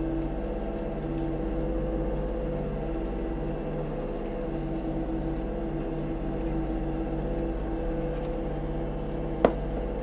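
Kubota U35-4 mini excavator's diesel engine running steadily while the arm and bucket work the soil, with a single sharp knock about nine seconds in.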